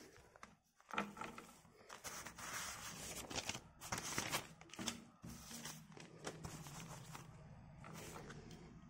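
Faint rustling and handling of paper in short, scattered bursts, with a few soft knocks.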